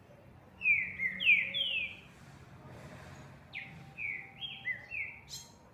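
Green-winged saltator (trinca-ferro) singing two short phrases of loud, clear, down-slurred whistled notes, three in the first and five or six in the second, with a pause between.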